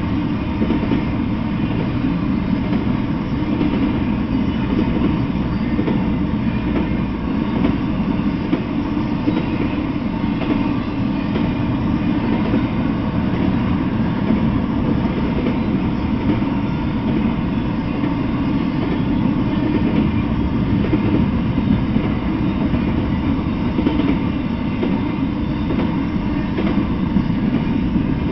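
Intermodal freight train rolling past, trailer-carrying flatcars and double-stack well cars: a steady low rumble of wheels on the rails with faint, irregular clicks over the rail joints.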